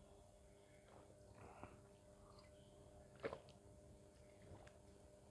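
Near silence with a few faint swallows of a man drinking water from a glass, one short and a little louder about three seconds in, over a faint steady hum.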